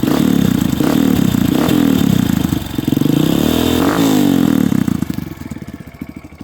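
Honda CRF230F's air-cooled single-cylinder four-stroke engine, breathing through an aftermarket slip-on muffler with no spark arrester fitted, revved in several blips and then dropping back to idle about five seconds in.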